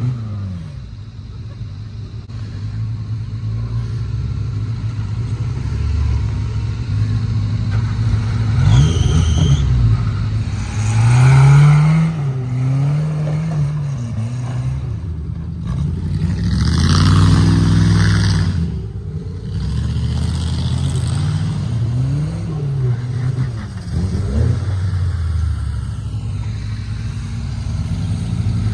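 Suzuki Samurai 4x4 engine revving up and down over and over as it works through a muddy off-road trail, with a longer, louder run of revs a little past the middle.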